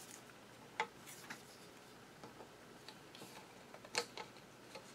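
A few faint, sparse metallic clicks as a screwdriver seats in and turns the small end screw of a Singer 66 sewing machine's feed linkage; the loudest click comes about four seconds in.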